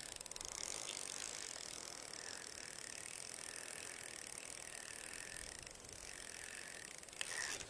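Spinning reel being cranked steadily to reel in the line, a faint fast ticking whir of its gears.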